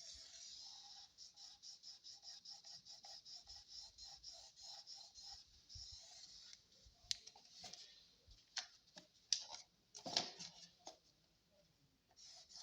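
Pen scratching quickly back and forth on a speaker box panel, marking a cutting line, at about five strokes a second. After that come a few separate knocks and taps.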